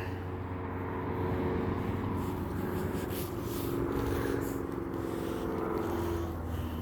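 A steady mechanical hum made of several held low tones over an even background noise, some of the tones shifting slightly in pitch around the middle.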